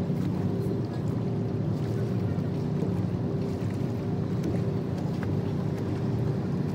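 Boat engine running, a steady low drone with a constant faint hum.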